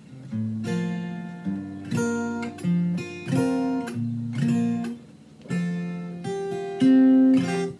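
Fender DG60CE steel-string acoustic guitar with a capo on the neck, strummed in a run of chords, one every half second to a second. The last chord, near the end, is the loudest and is cut off sharply.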